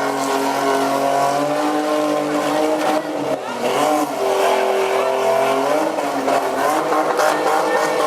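Small pickup trucks' engines running at high revs. The pitch drops briefly about three seconds in, then climbs again as they accelerate.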